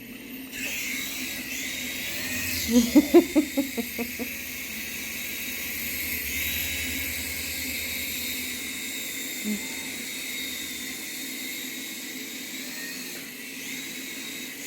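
SYMA S107H-E toy helicopter's small electric rotor motors whining steadily in flight, the pitch wavering slightly. A brief burst of a person's voice comes about three seconds in.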